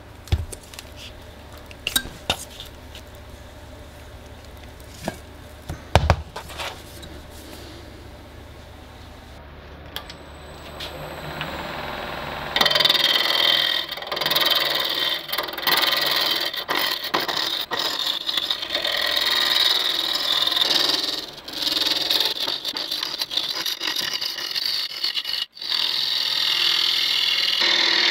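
A turning tool cutting a spinning apple-wood and resin mug blank on a Laguna 18/36 wood lathe: a loud, steady scraping hiss of the cut that starts about halfway through and breaks off briefly twice. Before it there is only a low hum with a few sharp knocks.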